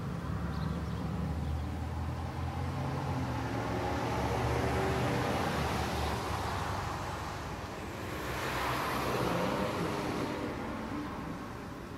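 Road traffic passing by: a low engine rumble with tyre hiss that swells as vehicles go past, once about four seconds in and again around nine seconds.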